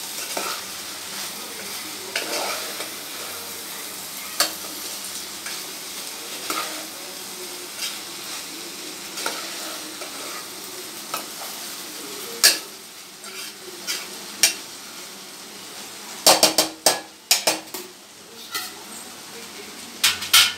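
Chopped spiny gourd frying with a steady sizzle in an aluminium pot while a steel spoon stirs it, scraping and clicking against the pot about every second or two. Near the end, a quick run of louder sharp metal clacks.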